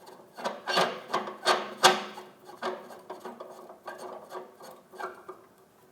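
Support rod of an embroidery machine's thread stand being turned by hand into its mount: a series of short rasping scrapes, strongest in the first two seconds, then fainter and sparser.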